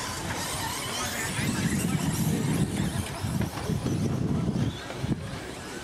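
Radio-controlled short course trucks racing on a dirt track, their motors whining in sliding pitches as they speed up and slow down. A louder low rumble runs for a few seconds in the middle.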